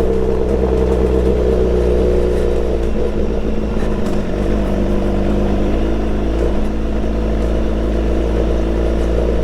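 BMW S1000XR's inline-four engine running through a full Akrapovič exhaust while riding, its note holding nearly steady with small shifts in engine speed.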